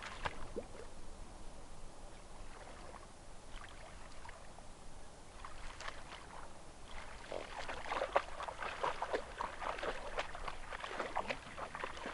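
Irregular splashing and sloshing in shallow stream water, heavier in the second half.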